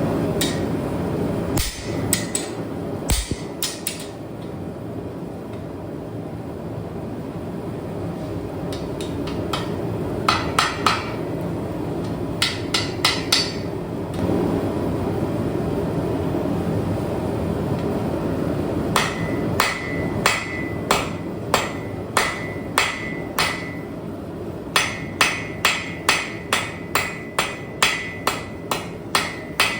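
Hammer forging a railroad spike on an anvil: scattered groups of blows, then a long regular run of about two strikes a second, each with a short metallic ring. A steady roar runs underneath.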